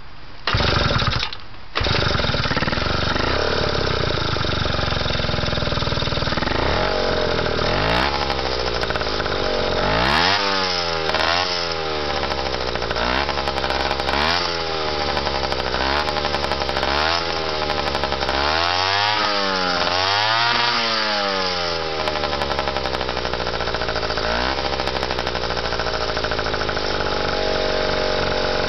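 Yamaha YT60 Tri-Zinger 60cc two-stroke engine in a QT50 moped, breathing through a DMC expansion chamber exhaust, started within the first two seconds. It is then revved again and again in quick throttle blips, rising and falling in pitch about a dozen times, and settles to a steady idle near the end.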